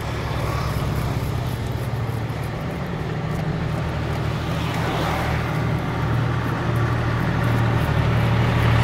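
An engine running steadily, a low even hum, with faint repeated scraping as a whole fish's scales are scraped off with a hand scaler.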